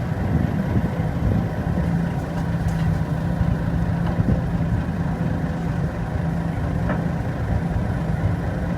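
Heavy diesel engine running steadily at a low, even rumble.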